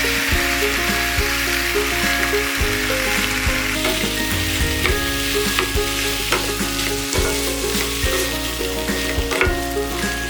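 Food frying in hot oil: a steady sizzle with many scattered sharp pops and crackles.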